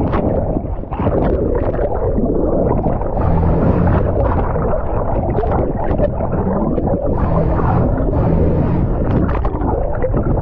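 Sea-Doo GTI SE 170 jet ski running at speed over waves, its engine drone rising and falling every few seconds, mixed with rushing water and wind noise.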